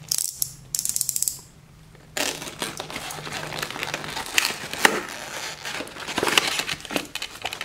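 A snap-off utility knife's blade slider clicking out in a quick run of clicks about a second in, then crackling, scraping handling sounds of packing tape being cut and peeled off a cardboard toy box.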